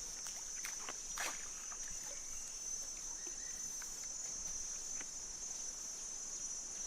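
Steady high-pitched drone of insects in tropical forest, with a few faint clicks or knocks about a second in and near five seconds.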